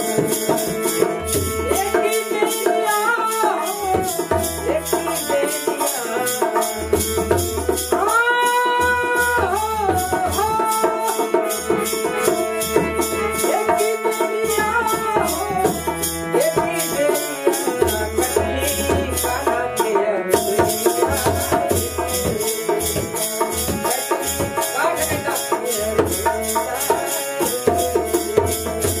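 Live Bhojpuri devotional folk song (bhajan) played on harmonium, dholak drum and kartal wooden clappers. The kartal clicks keep an even beat, the dholak plays low strokes, and a man sings over the harmonium's sustained chords.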